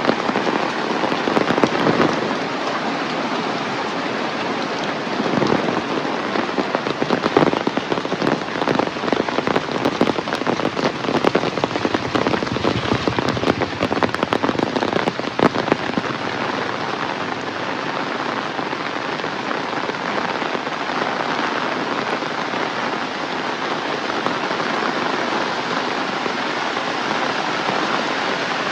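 Heavy rain falling steadily, with many sharp drops and splashes close by. The splashes are busiest over the first half and give way to a smoother, even rush after that.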